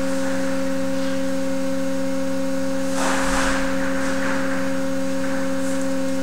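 Steady machine hum from the structural test rig, several fixed tones held without change. A short burst of noise about three seconds in.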